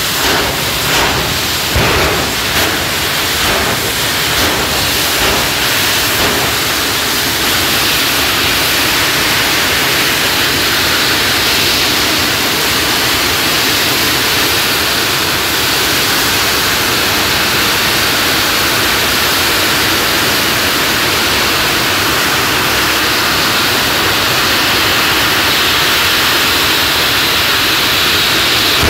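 Jet engines of drag cars running at the starting line: a loud, steady rushing hiss, with a few sharp pops in the first couple of seconds.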